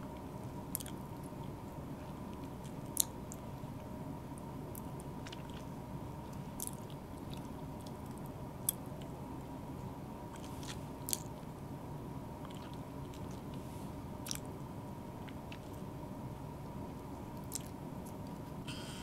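Cat eating from a dish: sparse, scattered crunching clicks, a dozen or so spread out, over a faint steady high hum.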